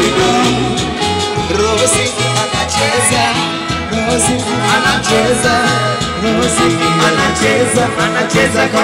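Dance music with singing over a steady, repeating bass beat.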